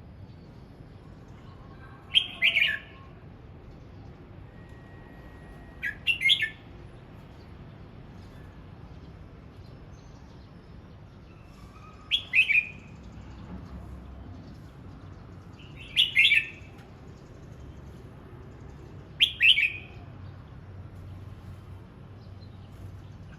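Red-whiskered bulbul singing short phrases: five brief bursts a few seconds apart, each a quick note followed by a louder one.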